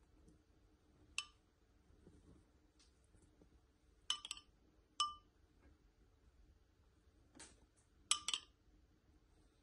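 Metal spoon clinking against the rim of a ceramic bowl while scooping syrup, about five short ringing clinks, some in quick pairs.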